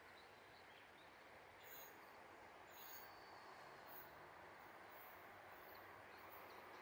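Near silence: faint steady outdoor background noise with a few short, faint high chirps.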